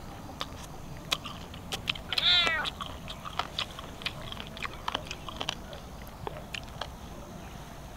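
A person eating grilled chicken wings by hand: scattered wet clicks and smacks of chewing and finger-licking. About two seconds in, a short high call rises and then falls; it is the loudest sound.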